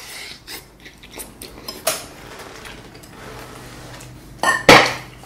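Metal forks and knives clicking and scraping on ceramic dinner plates as two people cut and eat, with a louder clatter near the end.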